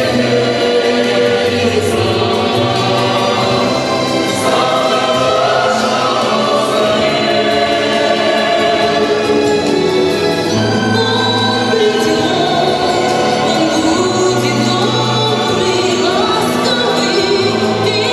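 A choir singing with instrumental accompaniment, a song with sustained bass notes under the voices.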